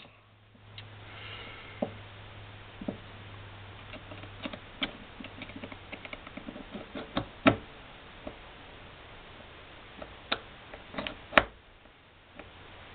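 Small metal clicks and taps of a High Standard HD Military .22 pistol being handled and worked apart by hand, scattered and irregular, with a few sharper clicks near the middle and toward the end.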